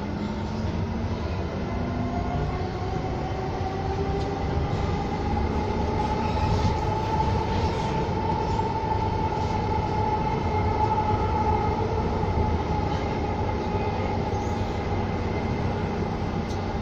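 Inside a U2 light-rail car under way: a steady rumble from the car running on the rails, with a whine that rises in pitch over the first half as the car picks up speed, then holds steady.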